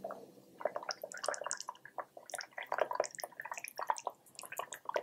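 Brown gravy poured in a thin stream into a ceramic gravy boat, splashing and plopping irregularly, several pops a second.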